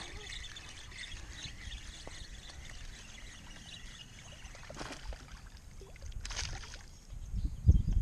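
Water splashing as a hooked bass thrashes at the surface beside a small boat: two short splashes in the middle, then a run of louder, low knocks and splashing near the end.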